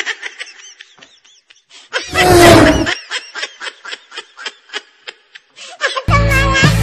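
Snickering laughter in short repeated bursts, with a louder outburst about two seconds in. Music comes in near the end.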